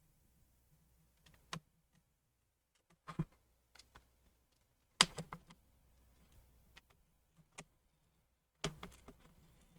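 Scattered light clicks and taps, irregularly spaced, of a prying tool working around the edge of an iPhone 6s Plus as the screen is prised away from its adhesive seal.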